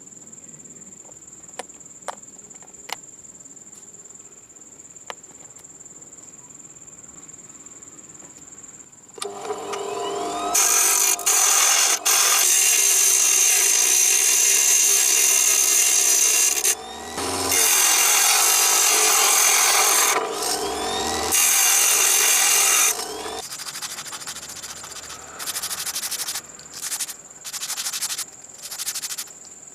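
A power tool running in long loud runs, with brief stops, then in short bursts near the end. Crickets chirp steadily with a high tone for the first third and between the bursts.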